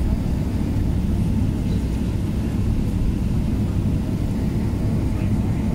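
Steady low rumble inside a jet airliner's cabin as it slows on the runway after touchdown, spoilers raised.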